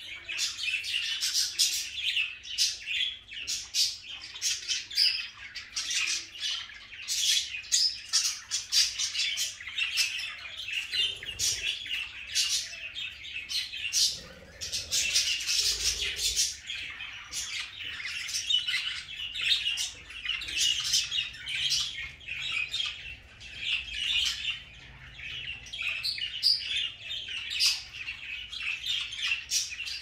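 A flock of budgerigars chattering and warbling without pause, a dense run of many short, rapid chirps.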